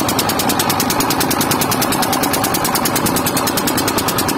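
Long-tail boat engine running steadily under way, with a fast, even chatter of firing strokes.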